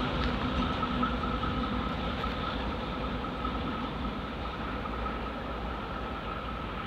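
DB class V 200 diesel-hydraulic locomotive running away along the track, its engine noise with a steady high whine slowly fading as it recedes.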